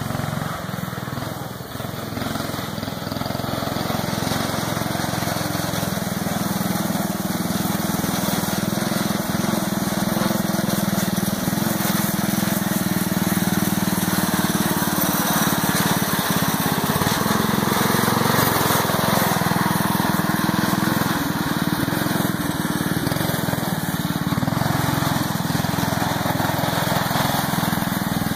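Small engine of a lawn-mower-based rock crawler running under way, growing louder over the first ten seconds or so and then holding steady.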